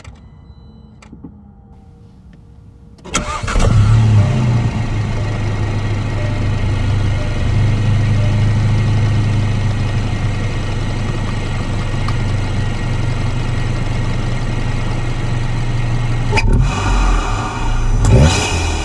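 VW Golf GTI Mk7's turbocharged 2.0-litre four-cylinder, fitted with an aftermarket intake, downpipe and exhaust, starts about three seconds in with a brief flare of revs, then idles steadily. Near the end it is revved in a few quick blips, the pitch rising and falling.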